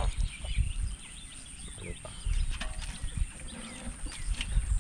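Rural background of small birds chirping, with a chicken clucking briefly about two and a half seconds in.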